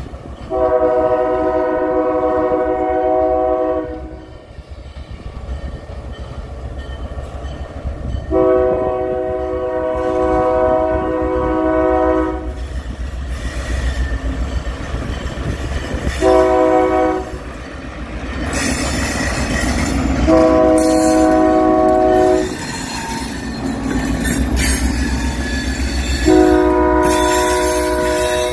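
EMD GP9 diesel locomotive's multi-chime air horn sounding the grade-crossing signal as it approaches a road crossing: two long blasts, a short one, then another long, with a further long blast starting near the end. Wheel and rail noise from the passing train grows over the last third.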